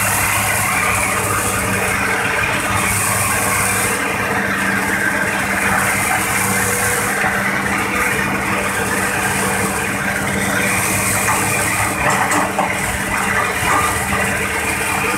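Diesel engine of a hydraulic excavator running steadily, heard from its cab as the boom and bucket work. A high hiss swells and fades every few seconds, and there are a few knocks about twelve seconds in.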